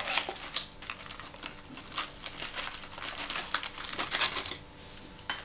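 Plastic MRE cracker pouch crinkling and crackling irregularly as hands open it and pull out the cracker, thinning out near the end.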